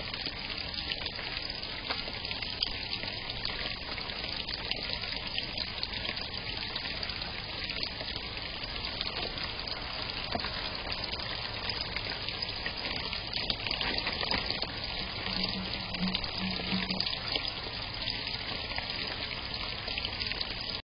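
Water trickling steadily in a small backyard garden pond.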